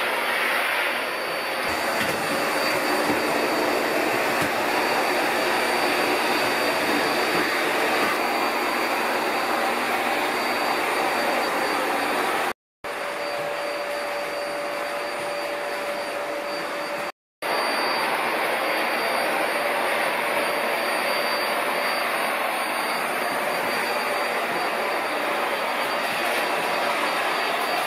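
Vacuum cleaner running steadily with a thin high whine, cutting out abruptly twice for a moment.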